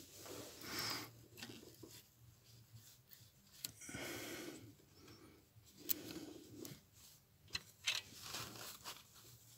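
Faint handling noises: rubbing and rustling, with a few sharp light clicks, as hands work a new engine coolant temperature sensor into its threaded port behind the engine's metal fuel lines.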